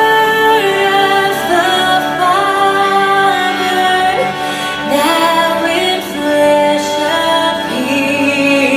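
A song: a woman singing a slow melody with held notes over instrumental accompaniment.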